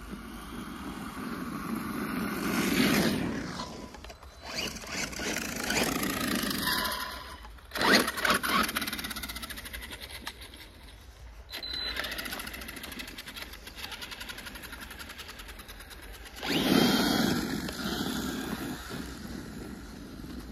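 Remote-controlled car driving off-road, its motor and tyres surging in several bursts of a few seconds each, with a sharp knock about eight seconds in.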